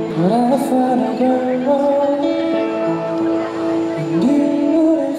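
A street busker's amplified performance: singing and guitar through a microphone and small amplifier, with held notes and a couple of sliding rises in pitch.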